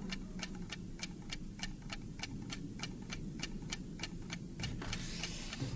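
A clock ticking steadily, about four ticks a second, over a low hum. The ticking stops near the end, and a short hiss follows.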